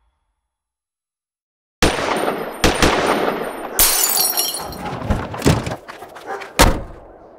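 About two seconds of silence, then a sudden loud crash that runs on as a noisy, clattering din broken by several sharp bangs.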